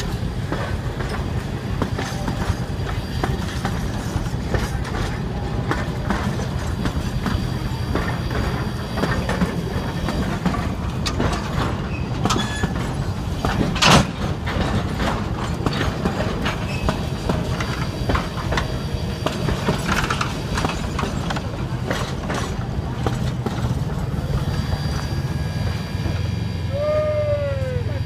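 Durango & Silverton narrow-gauge passenger cars rolling slowly past, a steady rumble with wheels clicking and clanking over the rail joints. One loud clank comes about halfway, and near the end the wheels squeal briefly as the train takes a curve.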